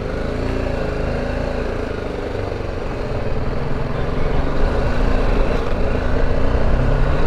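BMW G310GS motorcycle's single-cylinder engine running as the bike rides slowly along a rough dirt street, getting gradually louder as it picks up speed.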